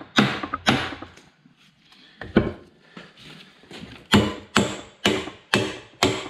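Hammer blows on metal at about two a second, driving a part of an excavator track tensioner home, each with a short ringing decay. They pause for a few seconds with one lone blow in between, then start again.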